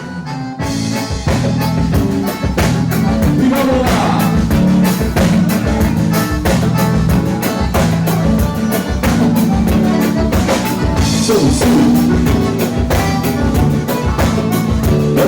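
Live band playing upbeat gaúcho dance music, with a drum kit keeping a steady beat under sustained instrument melody lines; the music starts abruptly at the beginning.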